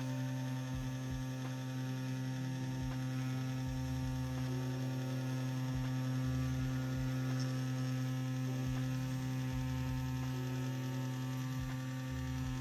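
Hummingbird BRONC V2 wireless rotary tattoo pen running with a 14-round shader cartridge: a steady electric motor hum while it works into silicone practice skin.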